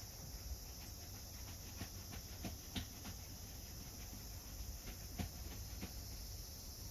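Faint, steady, high-pitched insect chirring, with a few soft clicks and taps scattered through, the clearest about two and a half and five seconds in.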